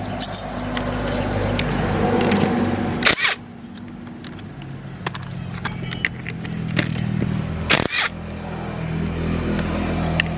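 An engine running steadily, growing louder over the first three seconds and then dropping, with a few sharp knocks, two of them loud.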